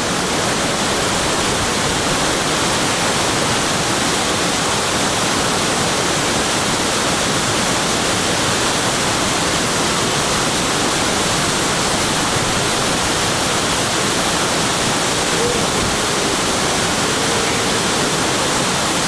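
Waterfall pouring, a steady loud rushing roar of falling water.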